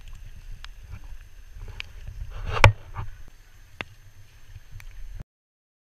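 Low wind rumble on the microphone with scattered sharp clicks, and one louder rushing noise ending in a sharp crack about two and a half seconds in; the sound cuts off abruptly near the end.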